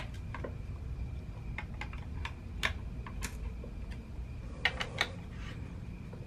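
Ratchet wrench clicking in short, irregular runs as the motor mount bolts are tightened down, over a steady low hum.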